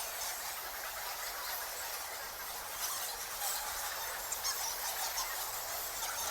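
A colony of bats squeaking and chittering: a dense, unbroken stream of short, high-pitched squeaks.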